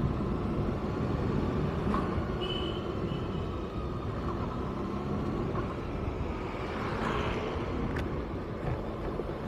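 Kawasaki ZX-6R's inline-four engine running steadily under way, with road and wind noise on the bike-mounted mic. A short high tone sounds about two and a half seconds in.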